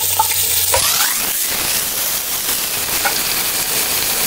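Raw chicken pieces frying in hot oil: a steady, dense sizzle as more pieces are added to the pot.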